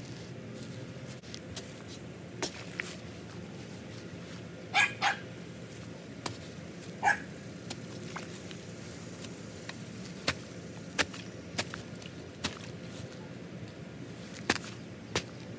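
A dog barks three times, two quick barks about five seconds in and one more about two seconds later, over scattered sharp knocks and clicks from a shovel and a foot tamping down loose dirt.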